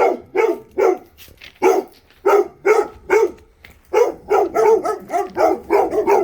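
Guard dogs barking hard and repeatedly, about two to three barks a second, with a short lull about a second in.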